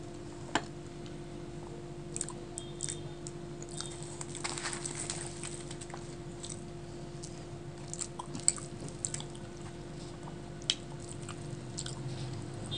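Close-miked wet chewing of soft fried luchi bread and chickpea dal, with squishy mouth sounds and several sharp lip-smacking clicks. A steady low hum sits underneath.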